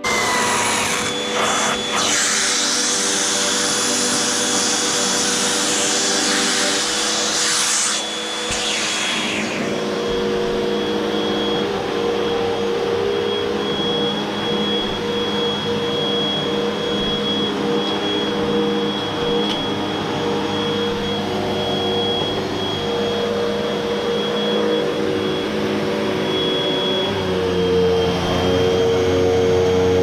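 Hoover WindTunnel upright vacuum cleaner running steadily on carpet with a high whine, sucking up a pile of hair and lint; a loud hiss covers the first several seconds. The sound gets a little louder and lower near the end.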